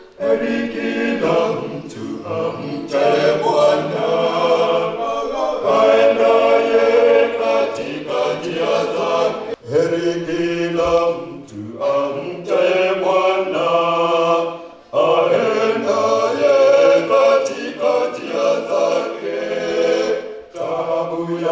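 Male vocal group singing a cappella in harmony into handheld microphones, in long phrases broken by short pauses about ten, fifteen and twenty seconds in.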